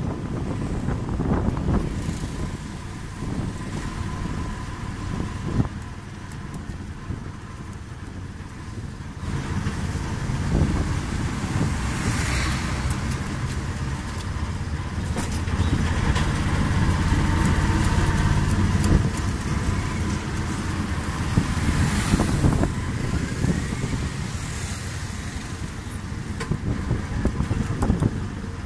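Auto-rickshaw engine running and its road noise, heard from inside the open cab while riding through street traffic. The sound swells and eases with the driving, with a few brief louder bursts of passing traffic.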